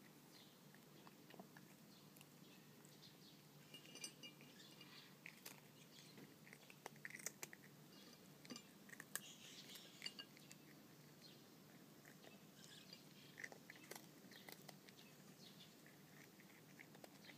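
Cat chewing dry kibble and soft dried small fish from a plate: faint, irregular crunches and clicks, busiest in the middle.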